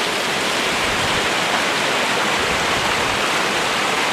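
Creek rapids rushing down a long slope from a lake: a loud, steady wash of fast-flowing water.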